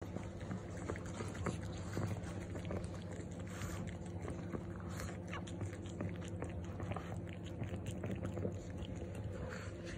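A pug bitch licking and chewing at her newborn puppy and its umbilical cord, cleaning it just after birth: wet smacking with many small irregular clicks. A low steady hum runs underneath.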